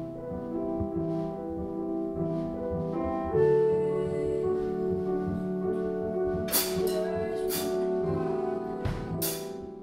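A young woman singing a slow song with long held notes, accompanying herself on a Nord Piano 4 stage piano.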